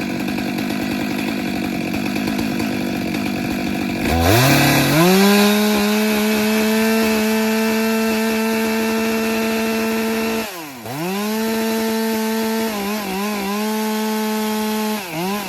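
Two-stroke chainsaw felling a tree. The engine runs rough under load for the first few seconds, then climbs to a steady high-revving whine. About ten seconds in the revs drop sharply and come back up, followed by a few quick dips in pitch and a final drop near the end.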